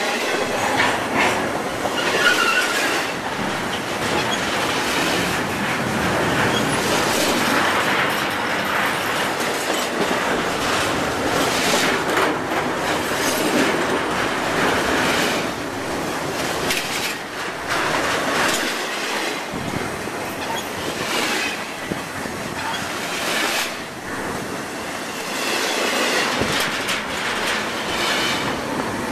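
Freight cars of a double-stack container train rolling past close to the microphone: a continuous rumble and rattle of steel wheels on the rail, with repeated clacks. Brief high-pitched wheel squeals come about two seconds in and again near the end.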